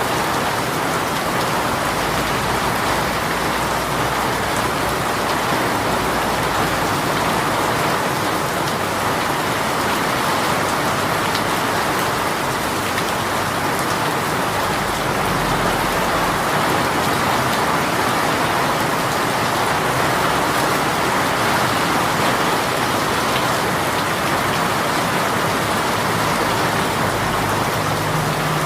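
A sudden downpour (sonagi) falling steadily: a dense, even hiss of raindrops hitting surfaces, with no let-up.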